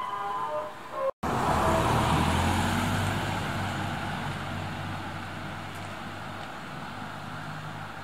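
Ambulance van driving away along a narrow road. Its engine and tyre noise is loudest about two seconds in and fades steadily as it recedes, with no siren sounding.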